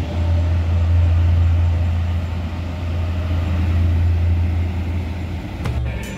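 A train at the station running with a steady, loud low drone that breaks off about a second before the end.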